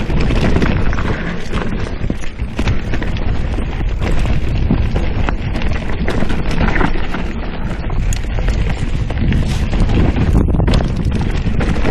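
Mountain bike riding down a rough dirt and rock singletrack: tyres crunching over the ground and a constant rattle of quick knocks and clatters from the bike over bumps, with wind rush on a chest-mounted camera's microphone.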